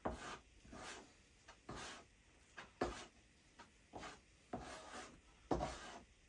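A small spreader scraping and smearing two-part fibreglass paste against a scrap wooden board as the paste is mixed with its hardener: a series of short, faint scraping strokes, roughly one or two a second.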